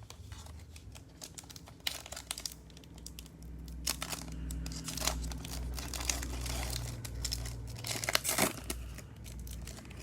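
A trading-card pack's foil wrapper being torn open and crinkled in the hands: an irregular run of crackling rustles.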